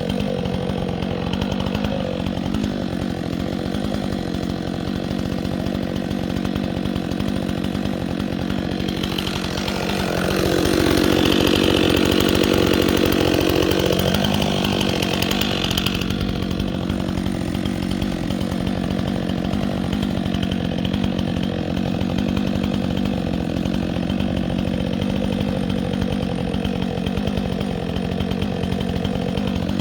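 Chainsaw engine running steadily, then revving louder and higher for about six seconds from about ten seconds in before settling back down.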